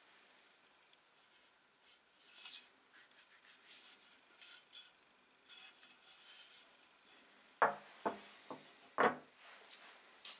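Antique rusty drawknife with wooden handles being handled, with light rubbing and scraping, then set down on a wooden workbench with four knocks, the first and last the loudest.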